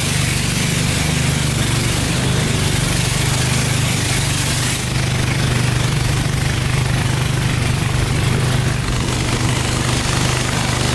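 Engine of a long wooden river boat running at a steady speed under way, a constant hum that holds its pitch throughout.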